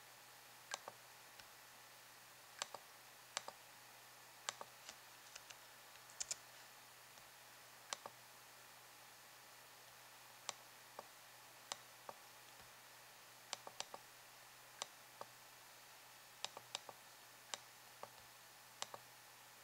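Computer mouse button clicks, short and sharp, coming at irregular intervals, many in quick press-and-release pairs, over a faint steady hiss.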